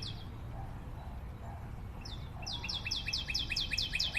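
Rapid high chirping like a bird's trill, starting about two seconds in at about seven short falling chirps a second; before that only a faint low background noise.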